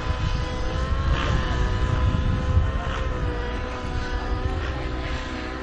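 Small glow-fuel model airplane engine of a radio-controlled Zero running steadily in flight, its pitch dipping slightly now and then, with wind rumbling on the microphone.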